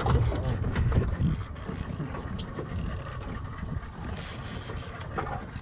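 Fishing reel clicking irregularly as a hooked fish is fought on a bent rod, with a low rumble underneath and a short hiss about four seconds in.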